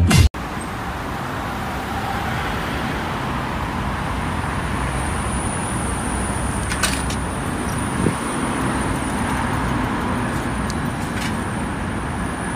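Steady city street traffic noise, a wash of passing road traffic, with a thin high whine joining about five seconds in.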